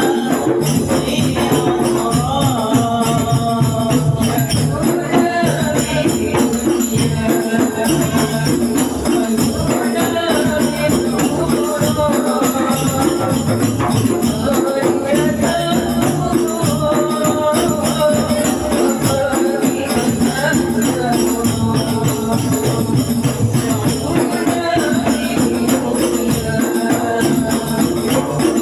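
A group of voices singing with jingling, rattling hand percussion, like tambourine. The singing runs on steadily without a break.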